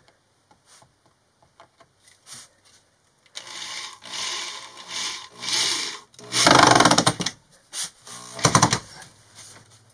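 Cordless drill driving screws into the wood of a plywood cabinet, in several short runs starting a few seconds in. The two loudest runs come about halfway through and near the end.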